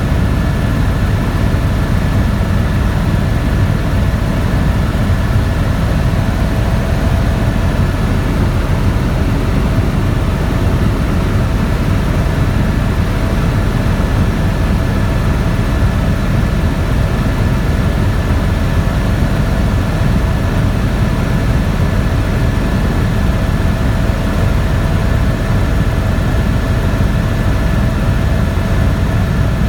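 Helicopter in flight: steady, loud low engine and rotor noise with a constant whine on top.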